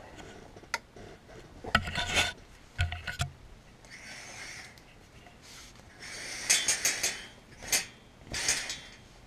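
Handling noise: clothing and backpack straps rubbing and rustling close to a body-worn camera, in irregular bursts, with scattered sharp clicks and knocks as things are moved about.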